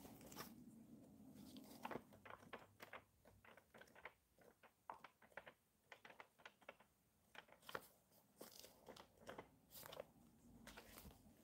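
Faint rustling and quick irregular ticks of the paper pages of an 1870s book being flipped through by hand.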